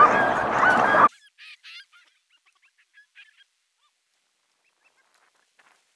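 Alaskan husky sled dogs yipping and whining in short high cries over a loud rushing noise, which cuts off abruptly about a second in. Then near silence with a few faint, scattered high yips.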